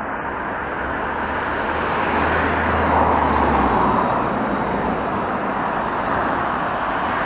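Engine and tyre noise of passing road traffic, a broad rushing sound that swells over the first few seconds and stays up. Beneath it a low steady hum stops about three and a half seconds in.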